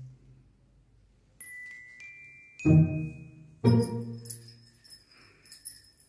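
A short musical sound effect: a few high tones stepping upward, then two struck bell-like notes about a second apart, followed by light jingling and tinkling.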